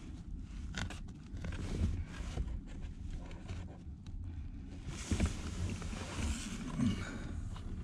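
Pleated cabin air filter being handled and slid along its plastic housing under the dashboard: scraping and rustling with a few light clicks, growing into a broader rustle about five seconds in, over a steady low rumble.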